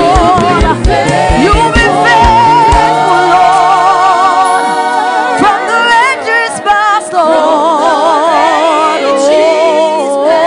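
Gospel worship song: voices singing with vibrato over backing music, with a steady low beat that drops out about three seconds in.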